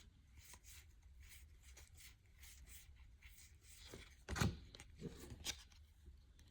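Faint rustling and light clicks of trading cards being handled and sorted by hand, with a somewhat louder knock about four and a half seconds in and a couple more near the end.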